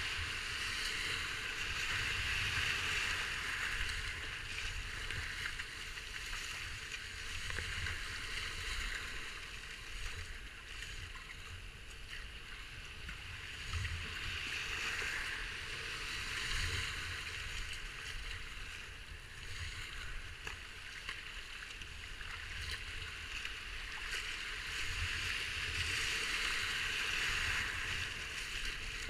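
Rushing whitewater around a kayak running a river rapid: a steady hiss of broken water that swells louder a few times, with low bumps and rumble underneath.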